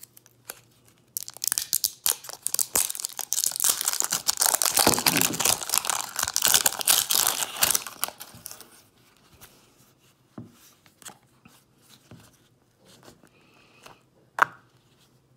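Toy packaging being torn open, with dense crinkling and tearing for several seconds, then a few small clicks and taps and one sharp click near the end.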